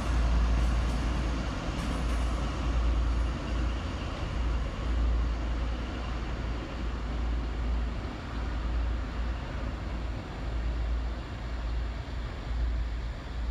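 Diesel engine of an HST power car working under power as the train pulls away, a deep steady rumble with wheel and rail noise that slowly fades as it draws off.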